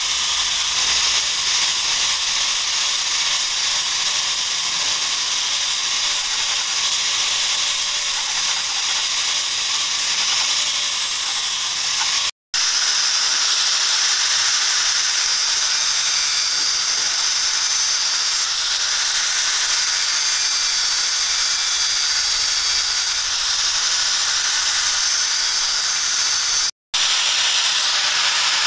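Electric angle grinder running steadily with an abrasive disc grinding a small steel piece: a continuous high whine over rasping noise. The sound cuts out for an instant twice.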